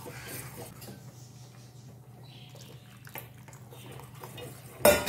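A spoon stirring thick ragi and vegetable soup in an aluminium pot, the liquid sloshing softly, over a low steady hum. Near the end comes one loud, sharp clatter.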